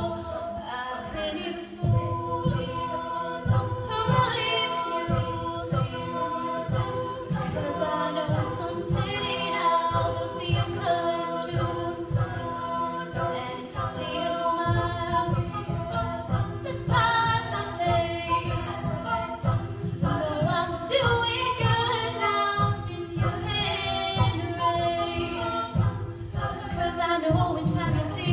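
Music: a song with several voices singing together over a steady beat.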